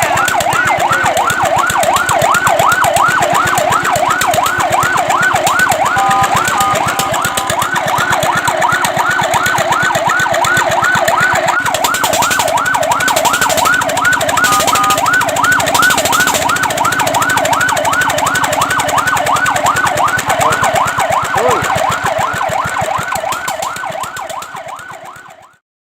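Fire truck siren on a fast yelp, rising and falling about three to four times a second, briefly broken twice by a short steady tone. It fades out near the end.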